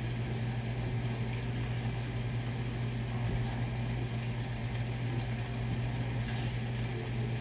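Steady low hum of a running kitchen appliance motor, with a faint hiss over it.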